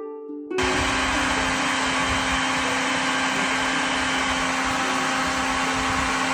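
Bee vacuum running steadily: a constant motor whine over loud rushing air, cutting in suddenly about half a second in.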